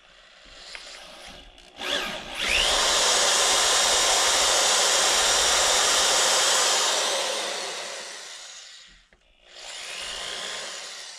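Corded electric drill boring out the stripped M10x1.25 drain plug threads in a 2017 Yamaha YZ450F engine case, the first step of a Time-Sert thread repair. The drill spins up with a rising whine about two seconds in and cuts steadily for several seconds. It then winds down, and runs again more quietly near the end.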